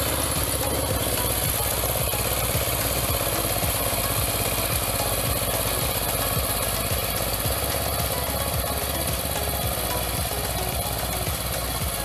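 Two-wheel hand tractor's single-cylinder diesel engine running steadily under load as it works a field, with a rapid, even beat of firing pulses.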